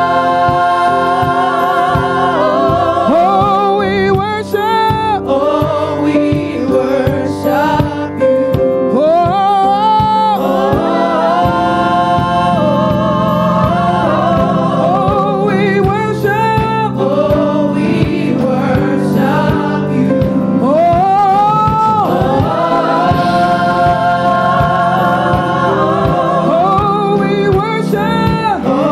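Gospel praise team singing in harmony into microphones, a lead voice with vibrato over the group, with organ accompaniment.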